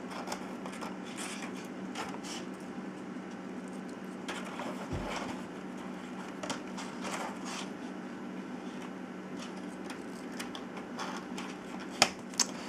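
Light, scattered clicks and rattles of small 3D-printed plastic wireframe puzzle pieces being handled and slid into one another on a table, over a steady low hum. There is a sharper click about twelve seconds in.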